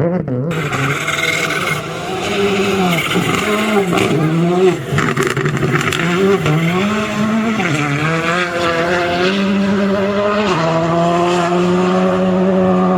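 Rally car's turbocharged four-cylinder engine working hard, its pitch rising and falling again and again through gear changes and lifts. It holds a steadier note for the last couple of seconds.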